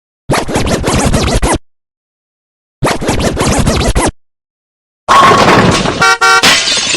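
A short meme sound clip of music with DJ record scratching, about a second and a half long, played twice with dead silence between. A different, louder sound clip starts about five seconds in.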